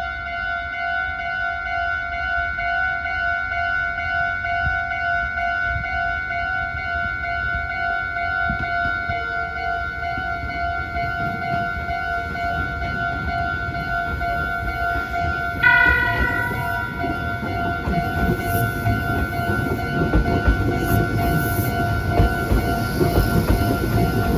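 Japanese level-crossing alarm ringing steadily with its repeating electronic ding. About two-thirds of the way through a train horn sounds briefly. Then a Meitetsu 2000 series μSKY electric limited express comes through the crossing, its wheel and running noise growing louder toward the end.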